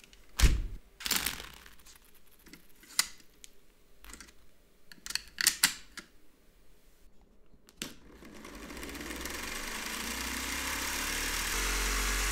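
Sharp plastic clicks and knocks as the Lego Technic launcher is handled, then, about eight seconds in, its small electric motor starts and spins the rubber-tyred launch wheel through a gear train with a whir that rises and then holds steady.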